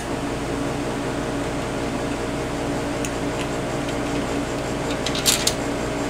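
Steady workshop background hum: a fan-like machine noise holding several fixed tones. About five seconds in there is a brief, light metallic click as the steel bracket is handled against the brake plate.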